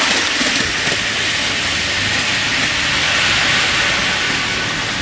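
Miniature live-steam locomotive LNER 1001 hauling a ridden passenger train past on the track: a steady rush of noise with a low rumble, easing off a little near the end.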